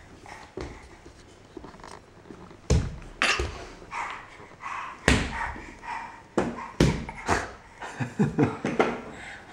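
A wooden push-along baby walker cart rolling and knocking on the floor as a baby pushes it, with a handful of sharp knocks. A baby's short vocal sounds come between the knocks.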